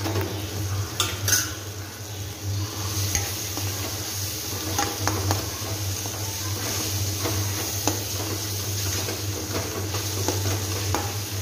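A spoon stirring a masala of fried onion, tomato and spice powders in oil in a kadai, with sizzling and occasional clinks against the pan, over a steady low hum.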